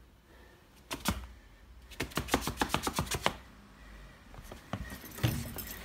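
Samoyed puppy chewing a knotted rope toy: irregular sharp clicks and crunches of teeth, densest about two to three seconds in, with a few more near the end.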